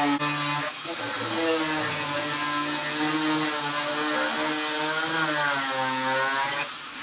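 Angle grinder with a thin cut-off wheel cutting through a fiberglass fender flare: a steady motor whine that wavers up and down in pitch as the cut goes on, over a gritty hiss. It dips briefly about a second in, and the cutting stops near the end.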